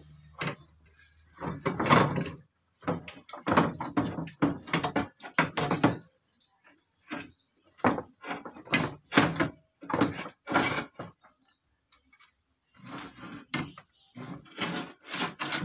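Toyota Kijang radiator being worked loose and lifted from its mounts: an irregular run of knocks, clunks and scrapes as it is shifted against the surrounding parts, with a short pause about twelve seconds in.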